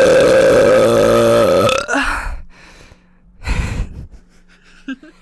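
A woman's long, loud burp of about two seconds, followed about three and a half seconds in by a second, shorter burst.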